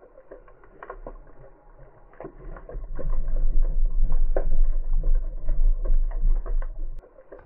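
Underwater ambience with scattered clicks and pops, and a loud low rumble that swells about three seconds in and drops away near the end.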